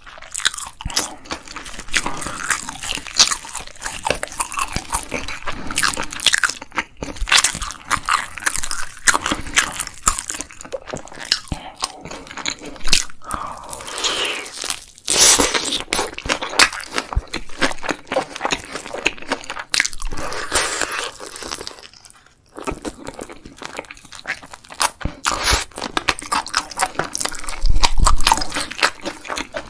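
A person biting and chewing crunchy fried food: a rapid run of crisp crunches, with a brief pause about two-thirds of the way through.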